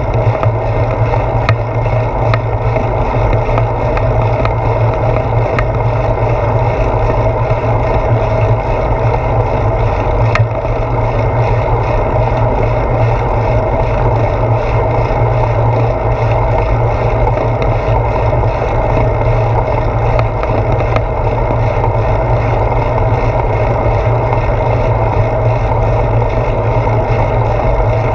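Steady wind rumble buffeting a handlebar-mounted GoPro Hero 4's microphone on a moving bicycle, mixed with tyre and road noise, with a few light clicks from bumps.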